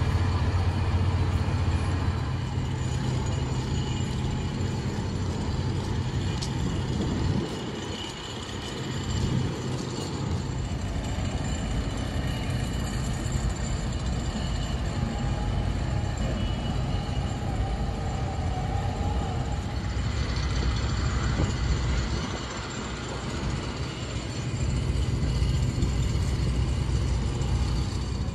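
Low, steady rumble of a running road vehicle, easing off briefly twice.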